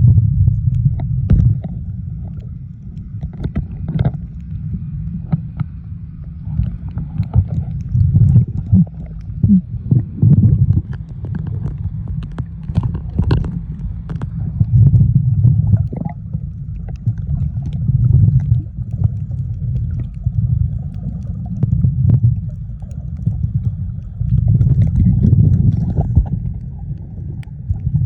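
Muffled low rumble of water moving around a submerged camera, swelling every two to three seconds, with scattered clicks and crackles.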